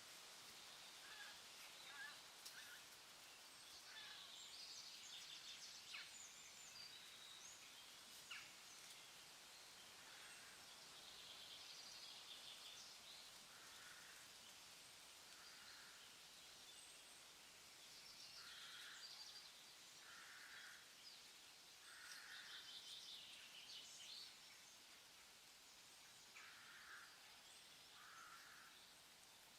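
Faint forest ambience: birds calling over a steady hiss, with short calls repeated every second or two and bursts of rapid high twittering.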